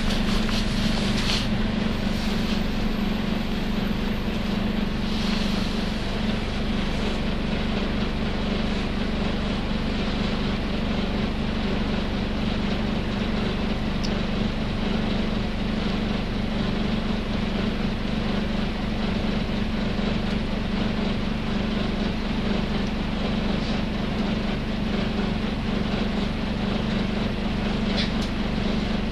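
Nissan Diesel UA city bus running, heard from inside the cabin, with a steady low drone that holds at one pitch and does not rise or fall. The bus is one known to run with an abnormal noise, a sign of its poor condition as its vehicle inspection runs out.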